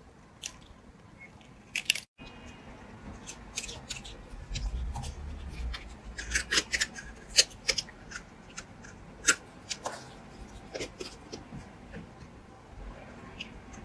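A blade cutting into a bar of soap: an irregular run of crisp clicks and scraping strokes.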